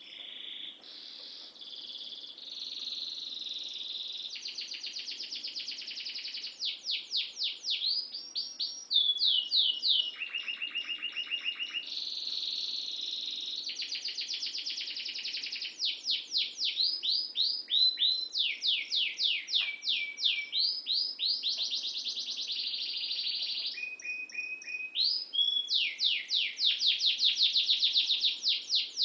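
Domestic canary in full song: one long, unbroken high-pitched song of rapid trills and repeated sweeping notes, switching to a new phrase every second or two.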